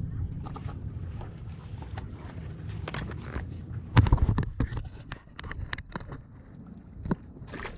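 Close handling noises: a run of sharp clicks and knocks, the loudest about four seconds in, as a freshly caught bluefish is held and unhooked by hand. Wind rumbles on the microphone in the first half.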